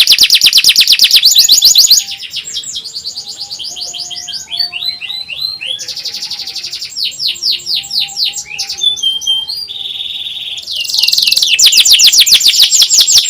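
Domestic canary singing: a loud, rapid trill of fast-repeated high notes (the 'nyerilik' trill) for about two seconds, then quieter, varied phrases and short trills, then another loud rapid trill starting near the end.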